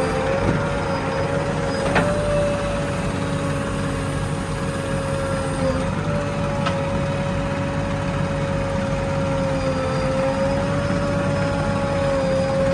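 JCB 3DX backhoe loader's diesel engine running steadily under a continuous high whine that wavers slightly in pitch. Two sharp clicks come about two seconds and about seven seconds in.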